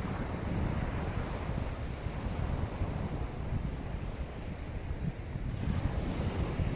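Wind buffeting the microphone with a low rumble, over the wash of waves on the beach; a brief brighter hiss about six seconds in.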